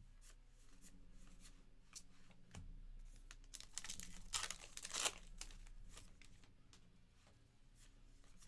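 Topps Heritage baseball card pack wrapper being torn open and crinkled, loudest about four to five seconds in, with light clicks and rustles of cards being handled around it.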